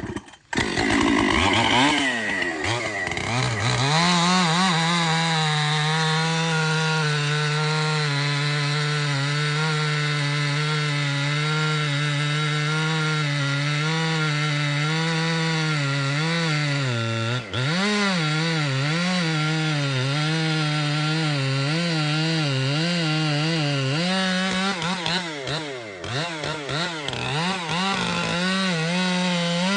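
Two-stroke chainsaw at full throttle cutting into a large tulip poplar trunk. It revs up, then runs steadily under load in the cut, with the pitch sagging and recovering. It drops off briefly about two thirds of the way in, then wavers more near the end.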